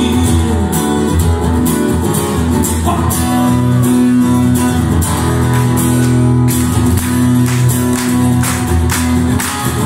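Acoustic guitar strummed live in an instrumental passage, with no singing.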